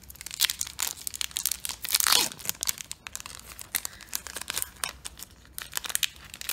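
Foil Pokémon TCG Crimson Invasion booster pack wrapper being torn open and crinkled in the hands, with dense crackling and one longer rip about two seconds in.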